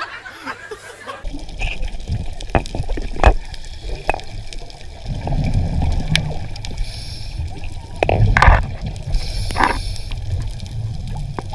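Underwater water noise: a steady low rumble with scattered clicks and knocks, and two louder gurgles of bubbles near the end.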